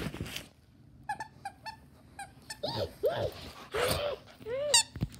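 Pet dog whining: first a quick run of short squeaky whimpers, then several longer whines that rise and fall in pitch, with a short breathy huff about four seconds in.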